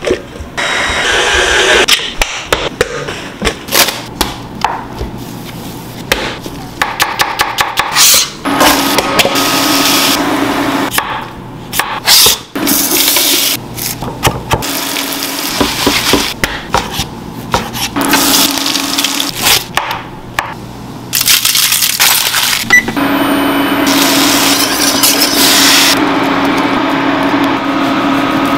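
A run of kitchen food-prep sounds in turn: a stand mixer running with a dough hook, a chef's knife chopping rosemary on a wooden cutting board in quick knocks, and hard cheese being grated over a pan near the end.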